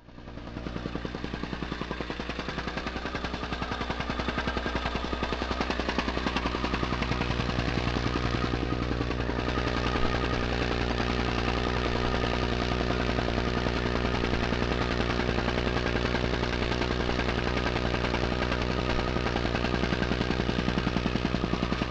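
An engine running steadily with a fast, even pulse, starting abruptly.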